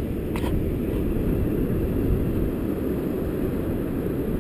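Strong wind buffeting the microphone as a steady low rumble, with a faint click about half a second in.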